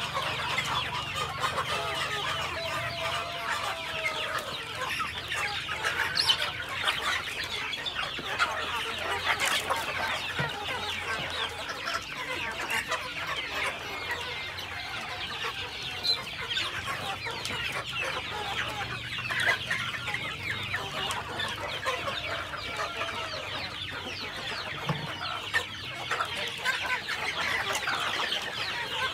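A large flock of chickens clucking continuously as they crowd around scattered feed, many birds calling over one another.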